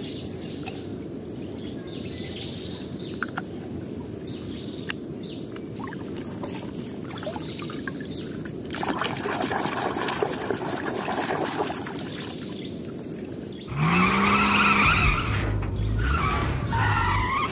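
Steady outdoor background with faint bird chirps, then water splashing and pouring in a tub for a few seconds around the middle. Near the end an animated race car's engine revs up, its pitch rising, louder than the rest.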